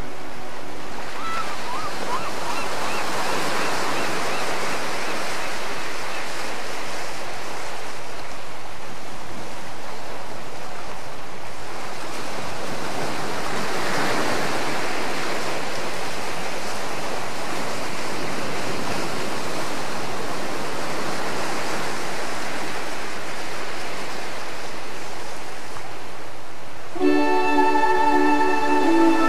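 Rushing noise like waves washing on a shore, rising and falling in slow swells. About two seconds before the end, music with sustained notes comes in.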